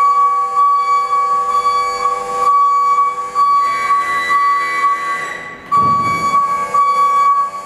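Background music: a steady high held note, flute-like, over shifting sustained chords, with a short dip about five and a half seconds in.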